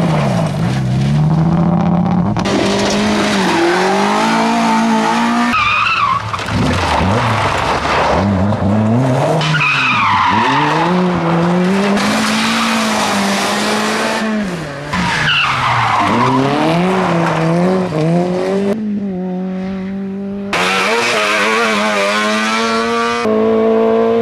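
Rally car engines driven hard, climbing in pitch and dropping back again and again as the drivers change gear. The sound switches abruptly several times as one car gives way to another.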